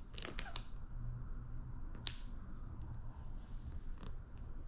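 Sharp ticks and clicks of a small knife and clear paint protection film being handled while the film is trimmed along a car hood's edge: a quick cluster at the start, a louder click about two seconds in, then a few faint ticks. A low steady hum runs underneath.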